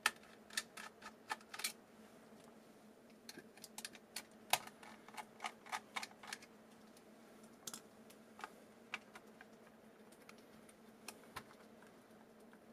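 Light, irregular clicks and taps of a small screwdriver backing out screws and fingers handling the metal case and circuit board of a mini PC. They come in clusters and thin out after about seven seconds.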